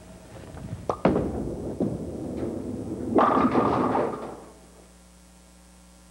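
A bowling ball is laid down on a wooden lane with a sharp thud about a second in and rolls with a rumble. About three seconds in it crashes into the pins, and the clatter dies away within about a second.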